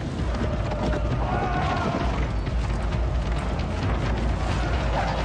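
Film trailer soundtrack: music over a steady deep rumble of battle and fire sound effects.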